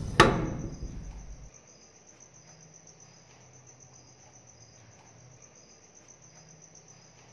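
A sharp, loud hit just after the start, its low rumble dying away over about a second, then crickets chirping faintly and steadily.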